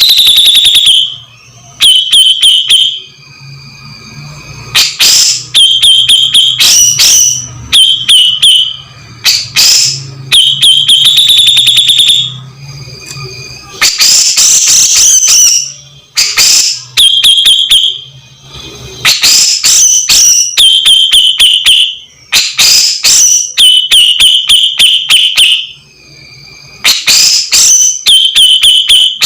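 Grey-cheeked bulbul (cucak jenggot) calling loudly: harsh phrases over and over, each a fast rattle of notes ending in a shrill held note, with short gaps between them.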